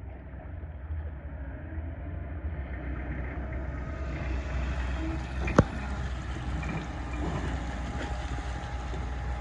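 An engine running with a steady low rumble that grows louder over the first few seconds, with one sharp knock about five and a half seconds in.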